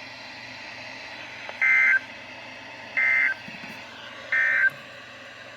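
Emergency Alert System end-of-message code on NOAA Weather Radio: three short bursts of SAME digital data tones, a high two-tone warble, repeated about a second and a half apart over steady radio hiss.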